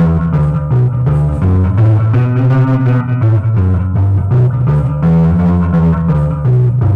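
Guitar playing a 12-bar blues, with a repeating low bass line under higher melody notes.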